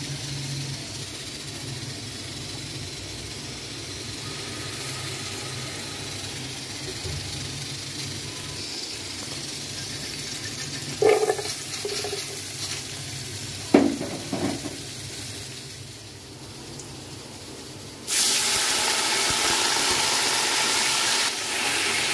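Frying in a steel pot. There is a steady low hiss of heating oil, and a few short knocks about eleven and fourteen seconds in as sliced onions and garlic go in. Some seconds before the end a louder, steady sizzle takes over as the onions fry brown in the oil.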